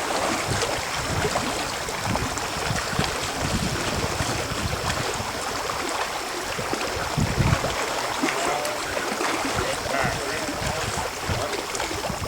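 Water splashing and lapping, with wind gusting on the microphone in irregular low buffets.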